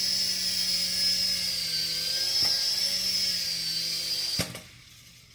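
Toy RC helicopter's small electric motors and rotors whining steadily with a high-pitched buzz, then cutting off with a light tap about four seconds in as the helicopter lands itself.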